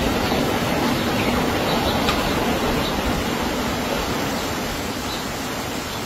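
Steady rush of muddy floodwater running over the ground in heavy rain, easing slightly toward the end.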